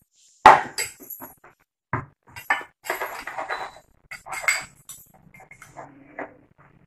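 Kitchen utensils clinking and knocking: a spoon against a glass bowl as a filling is scooped and mixed, and a knife on a plastic cutting board. It comes as an irregular string of sharp clinks, the loudest about half a second in.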